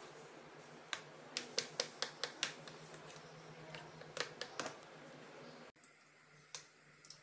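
Metal utensil beating thick gram-flour batter in a glass bowl: irregular sharp clicks of metal on glass over a soft wet mixing sound. It stops abruptly about five and a half seconds in, and a couple of single clicks follow.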